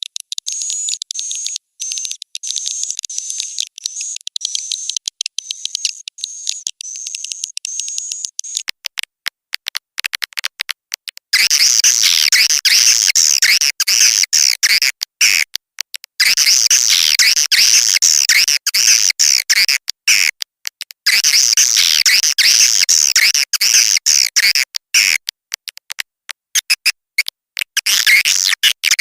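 Swiftlet lure call used in swiftlet farming: first a regular string of short high chirps, about two a second, then from about a third of the way in dense, chattering swiftlet twitters in long stretches broken by short gaps.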